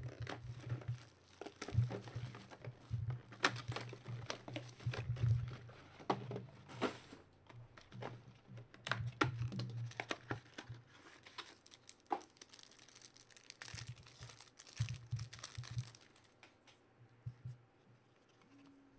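Foil trading-card pack wrapper crinkling and tearing as it is ripped open by hand, with irregular crackles and the cards being handled; the crackling thins out over the last few seconds.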